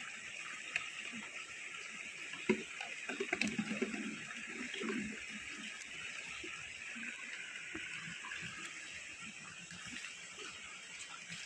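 Steady rush of a shallow stream running over rocks, with plastic water bottles knocking and crinkling as they are handled and gathered up, loudest between about two and a half and five seconds in.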